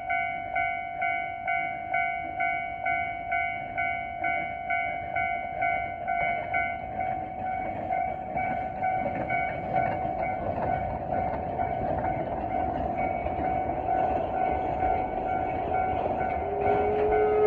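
Level-crossing bell clanging about twice a second as the Amamiya No. 21 forest-railway steam locomotive approaches. The locomotive's running noise grows louder and buries the clangs. Near the end its whistle starts to sound, a steady tone that rises slightly.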